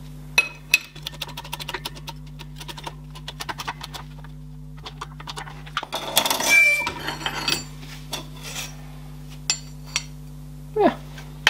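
Light metallic clinks and taps of a steel plate and tools being handled on a workbench, with a louder clattering scrape about six seconds in, over a steady low electrical hum.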